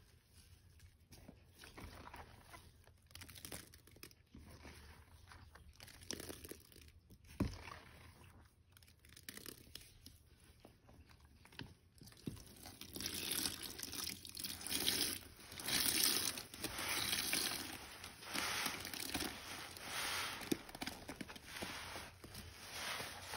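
Soapy, soaked sponge being squeezed: wet crackling of suds and water running out. About halfway through the squeezes grow louder and come roughly once a second.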